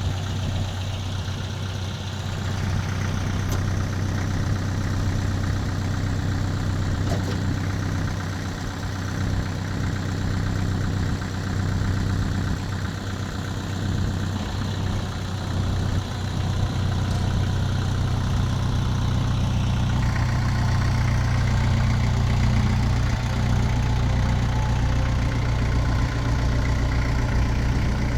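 Kubota farm tractor's diesel engine running steadily, getting louder about halfway through.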